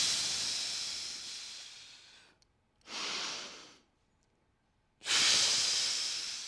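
A person breathing deeply and audibly while holding a stretch: a long exhale that fades away over about two seconds, a shorter inhale, then another long exhale starting about five seconds in.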